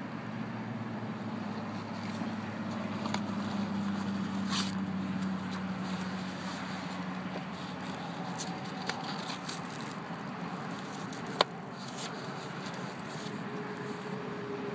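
Hands sliding and smoothing a fabric holster wrap around a car sun visor: scratchy rustling and small clicks, with one sharp click about eleven seconds in, over a steady low hum.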